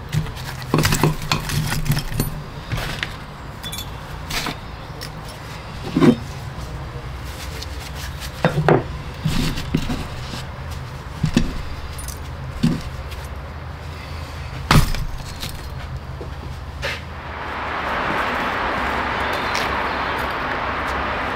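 Scattered hard clinks and knocks of pieces of mixed metal scrap and slag being handled, over a steady low hum. About 17 seconds in, a steady rushing noise sets in and holds.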